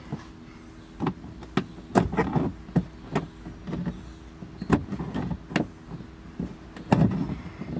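Irregular plastic clicks and knocks of a screwdriver working at the interior quarter trim of a 2019 Toyota 4Runner's cargo area, a few in quick succession, over a low steady hum.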